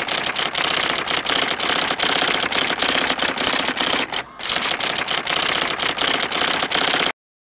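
Typewriter typing sound effect: a rapid run of key clacks with a short break a little past the halfway point, stopping abruptly near the end.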